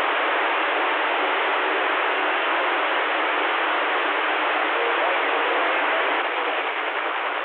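Steady static hiss from a CB radio's speaker between transmissions, with a few faint whistling tones from weak signals buried in it; the hiss drops a little about six seconds in.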